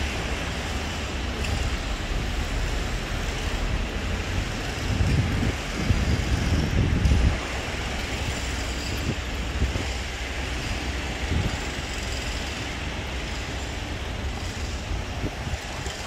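Outdoor city ambience: a steady hum of distant road traffic, with gusts of wind buffeting the microphone about five to seven seconds in.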